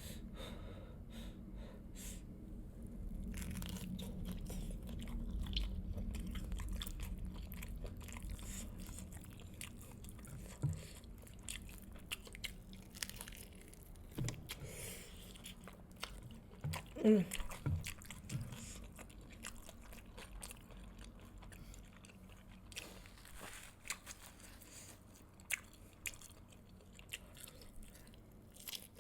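Close-miked chewing and biting of fried chicken drumsticks, with crunching, wet mouth noises and many small clicks. About halfway through comes a short vocal sound from the eater, the loudest moment.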